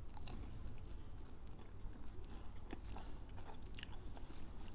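A person biting into and chewing a piece of toasted bread topped with caviar, with faint crunches and small crackles at irregular intervals.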